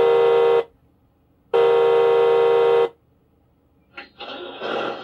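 Electronic truck-horn sound from an RC truck's speaker: two long steady blasts, each over a second long, about a second apart. Near the end a click, then a louder rising noise that settles into a steady hum.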